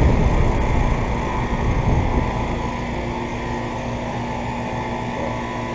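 Central air conditioner outdoor condensing units running on a hot day: a steady compressor hum and condenser fan noise, with a somewhat louder low rumble in the first two seconds.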